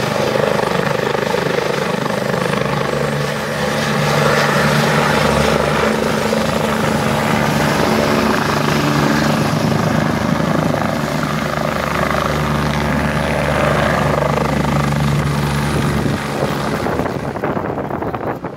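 Eurocopter EC145 twin-turbine helicopter running at full power as it lifts off from the sand, with the steady beat of its rotor blades over the turbine noise. The sound weakens and fades near the end as it moves away.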